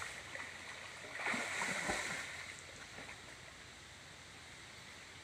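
Water splashing and sloshing from a person swimming through a river, in a burst strongest between about one and two seconds in, then easing to a faint steady rush of water.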